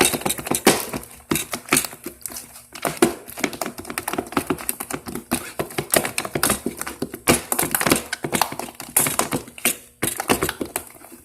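Hands kneading and squishing sticky glue-and-Tide slime, giving a rapid irregular run of wet clicks and pops.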